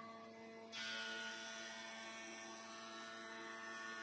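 Thickness planer running with a steady hum; under a second in, a strip of wood reaches the cutterhead and a louder, steady hiss of planing starts and continues over the hum.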